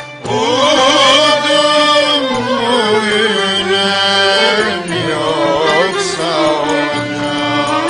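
Turkish classical fasıl ensemble: several singers sing a slow, richly ornamented melody together, their pitch wavering and sliding, over instrumental accompaniment that includes violin. It comes in after a momentary break at the very start.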